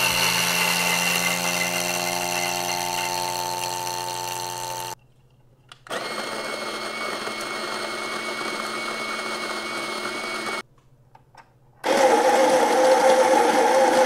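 Electric burr coffee grinders running one after another in three runs of about four to five seconds, with short silent breaks between. Each run is a steady, high-pitched whir, and the last one is the loudest.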